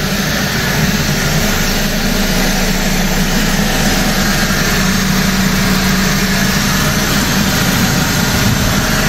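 Mercedes-Benz M271 Kompressor four-cylinder petrol engine idling steadily with a freshly fitted timing chain kit, running "silent as a kitten" with an even drone and no changes in speed.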